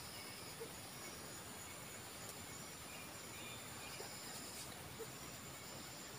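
Faint outdoor ambience: a steady high insect drone with a few faint, short chirps.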